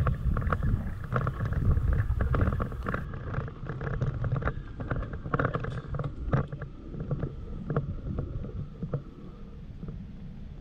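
Toyota Tacoma pickup rolling slowly over a dirt and gravel road: a low engine and tyre rumble with scattered crunches and knocks, growing quieter near the end.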